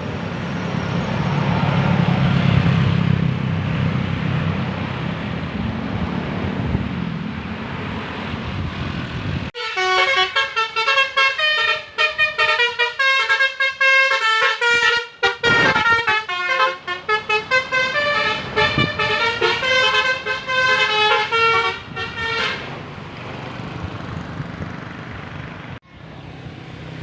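Bus engine rumbling, then about ten seconds in a telolet basuri horn, a multi-tone musical air horn, plays a fast tune of short changing notes for about thirteen seconds before the engine rumble returns.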